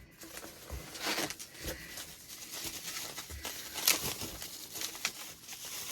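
Packaging crinkling and rustling as a parcel is unwrapped by hand, with short tearing sounds and clicks; the sharpest crackle comes about four seconds in.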